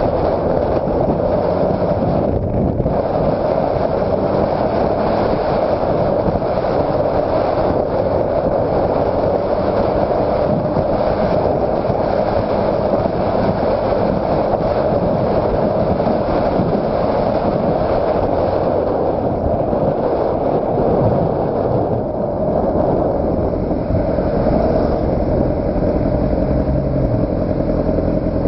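Steady riding noise from a 2006 Honda CBR600RR on the move: a loud, even rush of wind and road noise over the inline-four engine running at a constant pace, its engine tone a little clearer near the end.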